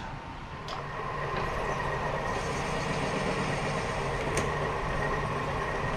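Mill-drill spindle running steadily as a drill bit bores the tap-drill hole for a 3/8 coarse thread.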